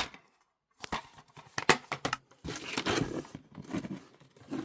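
Plastic DVD cases being handled: a few sharp clicks and knocks in the first two seconds, then rustling and scraping.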